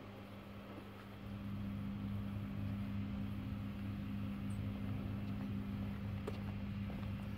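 A vehicle engine idling steadily, a low even hum that grows louder about a second in.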